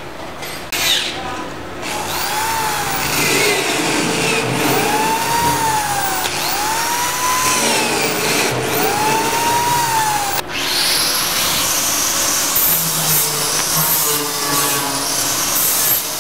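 Handheld electric drill boring holes through a sender-unit flange into a metal fuel-tank top. Its motor whine rises and falls about four times as each hole is drilled. It cuts off abruptly about ten seconds in, and a steady hiss-like shop noise follows.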